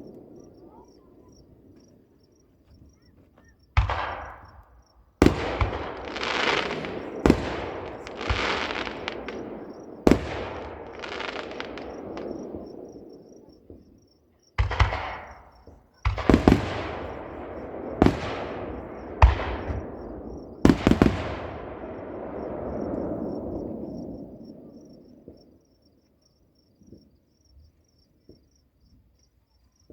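Fireworks display: about nine sharp aerial shell bursts, each followed by a rumbling, echoing decay, the last a little past two-thirds of the way in before the sound dies away. Crickets chirp faintly and steadily underneath.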